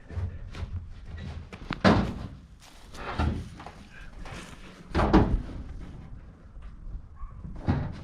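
Scrap being handled and loaded, a string of bangs and thuds with smaller knocks between; the loudest hits come about two seconds in and just after five seconds.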